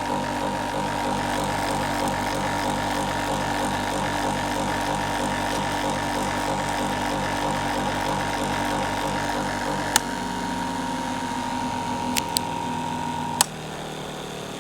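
Leather skiving machine running with a steady motor hum and a high whine. About two-thirds of the way through, a click changes its note. A few more clicks follow, and a last click near the end cuts off the whine as the machine is switched off or winds down.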